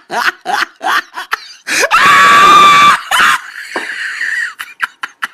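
Quick bursts of laughter at about four a second, then a woman's loud, high-pitched scream of about a second, starting about two seconds in. Shorter breathy cries follow.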